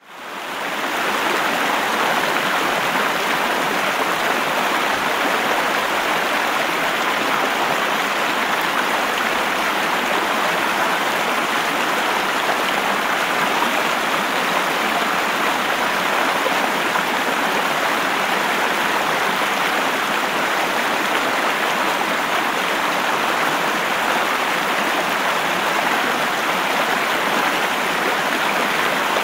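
Flowing river water rushing over rapids: a steady, unbroken rush that fades in over the first second.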